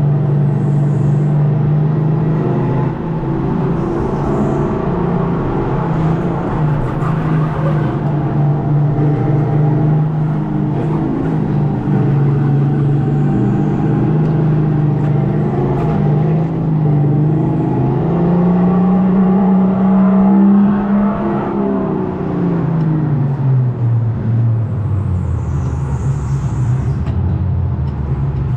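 Simulated engine sound piped through a speaker behind the seat of an electric go-kart, its pitch rising and falling with the throttle. It swells to its highest a little past two-thirds through, drops low about 23 seconds in and climbs again near the end.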